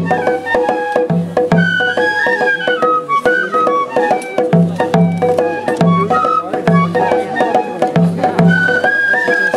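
Japanese festival ohayashi music: a bamboo flute playing a gliding melody over taiko drum beats that come in uneven pairs, with rapid sharp clicking strikes and a held tone beneath.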